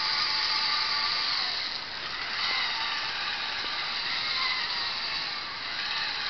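Geared DC drive motors of a Rover 5 robot chassis whirring as it drives on Vex mecanum wheels across carpet, with a grinding gear sound. The whir eases briefly about two seconds in and again near the end as the robot changes direction.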